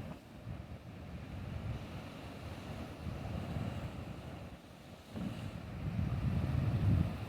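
Low, uneven rumble of a motorboat engine over water, mixed with wind buffeting the microphone. It swells in the last couple of seconds and is loudest near the end.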